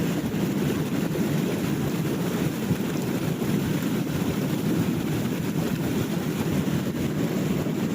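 Steady low rumble of wind buffeting the microphone, over the wash of the sea.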